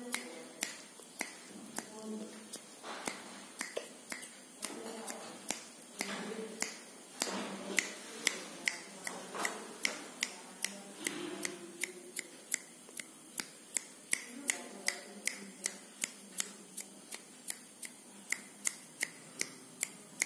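A steady series of sharp, dry clicks, about two to three a second, more closely spaced in the second half, over faint indistinct voices.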